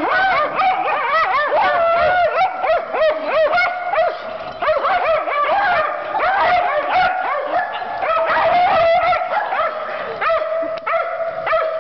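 A group of small dogs, a puggle among them, barking and yipping over one another in rough play. From about eight seconds in, a long drawn-out howl holds steady under the barks.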